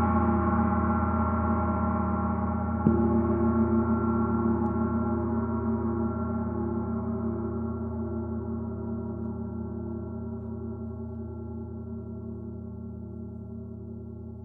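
32-inch Oetken Water Gong ringing in many steady tones, strongest low down. A mallet stroke about three seconds in renews the ring, which then slowly fades.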